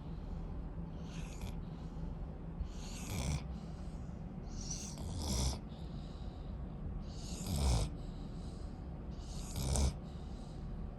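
Rottweiler puppy snoring in its sleep: five snores, one roughly every two seconds.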